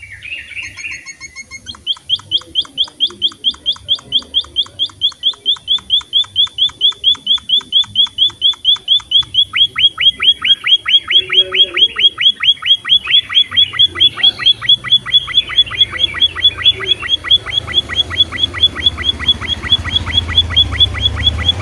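Munia (emprit) calling: a long, rapid run of short, high repeated notes, about five a second, steady from about two seconds in, after a brief different call at the start.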